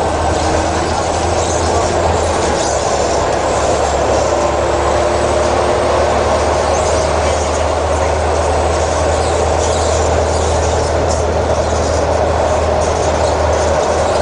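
Volvo transit bus driving at a steady pace: a loud, steady low diesel drone under broad road and body noise.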